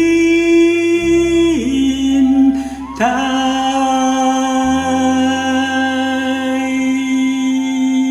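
A man singing long held notes over a karaoke backing track with a bass line. About a second and a half in the note drops a little; after a short breath he scoops up into a last long note and holds it.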